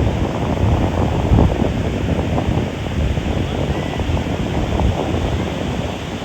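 Wind buffeting the microphone over the steady wash of ocean surf on the beach.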